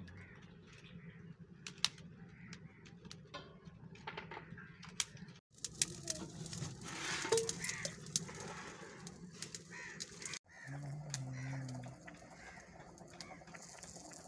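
Dry twigs crackling and snapping in a wood fire burning under a cooking pot on a mud stove, with scattered sharp clicks. Birds call in the background.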